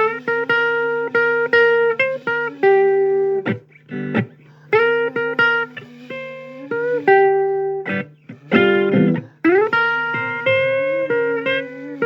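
Blues guitar instrumental break: held single notes and short phrases that glide up into pitch, with brief gaps between phrases, over a steady low hum.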